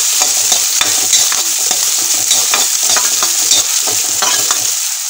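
Chopped vegetables (onion, carrot, beans, green chillies) sizzling as they sauté in oil in a metal kadai, with a steady hiss. A ladle scrapes and taps against the pan many times as they are stirred.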